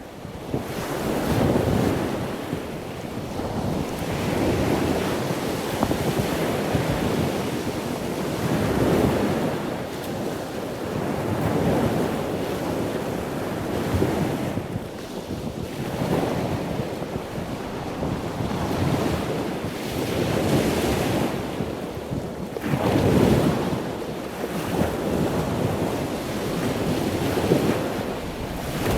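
Ocean waves washing in and drawing back, swelling and fading every few seconds.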